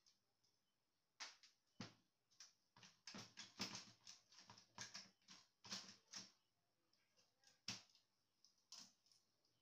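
Irregular clicks, taps and knocks of plastic and metal printer parts being handled and pried during disassembly of an HP LaserJet P1006 laser printer. They come in a busy cluster from about a second in, and a few more come near the end.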